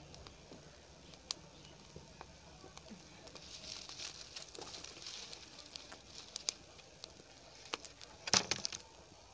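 Wood fire crackling under a tawa, with scattered snaps and the scrape of sticks being handled and pushed into the fire, and a louder wooden clatter near the end.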